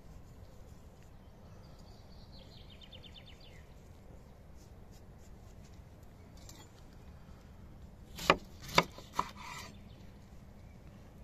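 A kitchen knife cutting through a lemon onto a wooden cutting board: two sharp knocks of the blade striking the board about half a second apart, then a lighter third.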